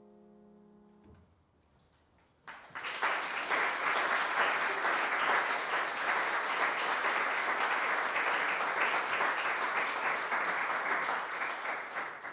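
The last piano chord fades out, and after a short pause an audience breaks into steady applause, which begins to fade near the end.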